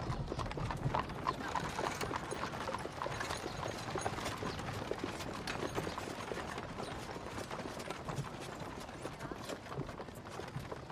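Horses' hooves clip-clopping in a dense, irregular run of knocks, with the rattle and creak of a horse-drawn carriage under way.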